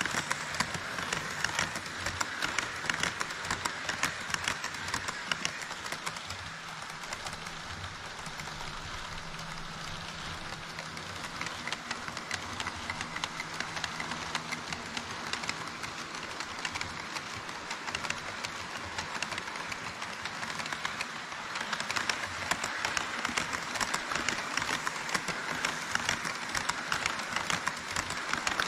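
HO-scale model trains running on the layout track: an E5 Shinkansen model and an EH200 electric locomotive model hauling tank wagons. Their wheels make a rapid, steady clicking over the track, louder near the start and the end as the Shinkansen model passes close by. A low steady hum sounds through the middle while the freight train crosses.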